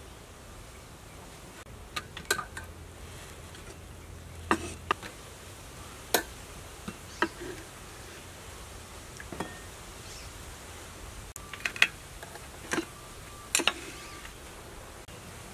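A steady low hiss with about ten scattered sharp clicks and taps, a few of them in quick pairs.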